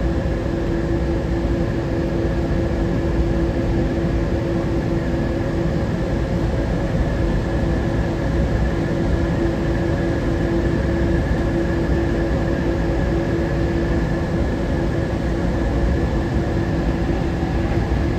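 Steady hum and rumble inside a car of the Newark Airport AirTrain monorail, with a constant whine held at one pitch.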